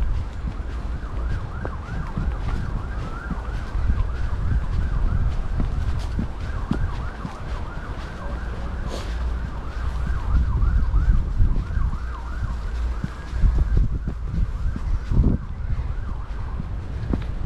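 Wind rumbling on the microphone during a bike ride, with a fast, wavering high-pitched squeak running through most of it and stopping a few seconds before the end. A few sharp clicks are heard.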